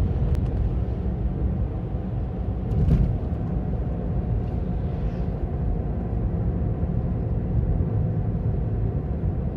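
Ravon R4 (Chevrolet Cobalt) wheel hub bearings humming with a steady low drone over road noise while the car drives, the sign of worn hub bearings. There is a brief bump about three seconds in.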